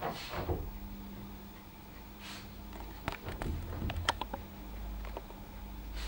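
Havanese dog moving about under a fleece blanket on a sofa: soft rustling swishes at the start and about two seconds in, then a run of light clicks and taps around three to four seconds in.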